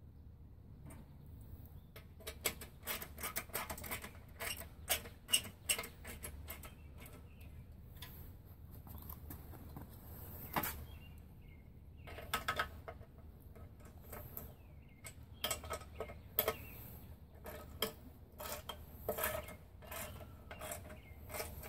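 Small metal parts of a pedal tractor being handled during reassembly: irregular clusters of light clicks, taps and rattles from the drive chain and metal fittings, with short pauses between.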